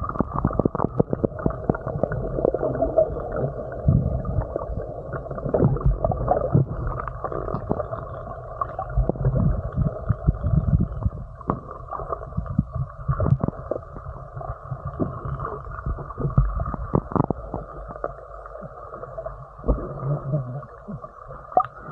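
Muffled underwater sound picked up by an action camera held just under the surface: water sloshing and gurgling, with a low rumble and frequent dull knocks and bumps as the camera moves in the water.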